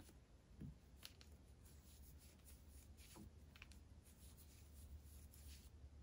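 Near silence: faint scattered clicks and rubs of wooden knitting needles and yarn as stitches are worked, over a low steady room hum.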